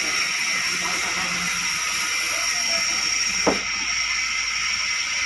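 Sawmill saw running with a steady high hiss and a faint high whine, with one sharp knock about three and a half seconds in.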